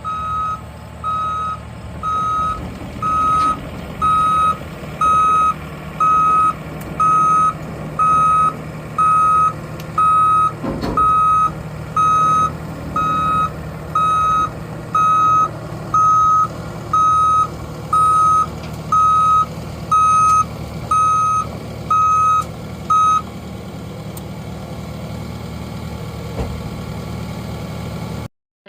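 New Holland C327 skid steer's backup alarm beeping about once a second while the machine reverses, over the steady running of its engine. The beeping stops about five seconds before the end, leaving the engine running.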